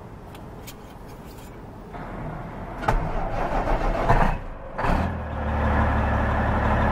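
Semi truck's Caterpillar diesel engine being started: the starter cranks it from about three seconds in, it fires in a few surges, then catches at about five seconds and settles into a steady low idle.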